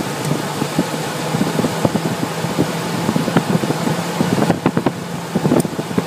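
2001 Ford Expedition V8 idling with a steady hum and uneven ticking, running on a dead misfire in cylinder 5.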